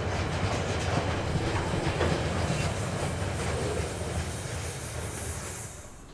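A train passing on the track, its wheels rumbling and clattering over the rails, growing fainter toward the end.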